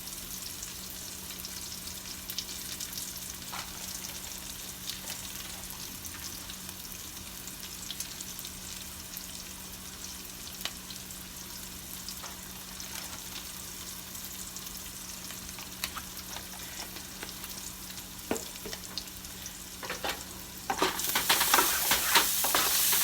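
Chopped onions sizzling in butter in a frying pan, with scattered light clicks. Near the end the sizzle suddenly grows much louder, with quick scraping clicks of stirring.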